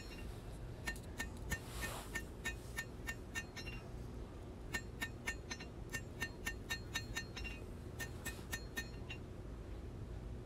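Hand hammer striking hot knife steel on an anvil, drawing out the blade edge: quick ringing metallic blows, about three a second, in three runs with short pauses between.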